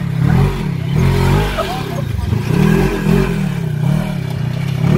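Four-seat side-by-side UTV's engine revving up and down over and over, about once a second, under load as it climbs a steep slickrock slope.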